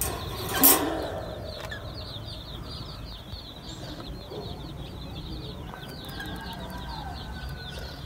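Budgerigars chattering: a steady stream of rapid, high, short chirps. A short, loud sound stands out about a second in.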